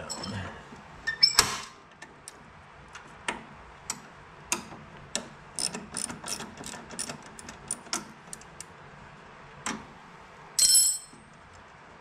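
Ratchet wrench clicking in uneven strokes as it backs a nut off one of the bolts on a John Deere TRS 24 snowblower's friction wheel, about one to two clicks a second. A louder knock comes about a second in, and a short, louder rattle near the end.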